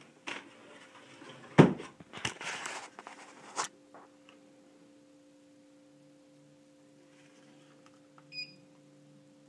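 A few knocks and a brief rustle, the loudest a sharp thump about one and a half seconds in, around a stair lift carriage on its rail; then a faint steady hum.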